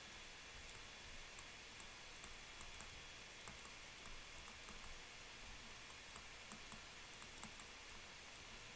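Faint, irregular light ticks of a stylus tapping and writing on a tablet screen, over quiet room tone.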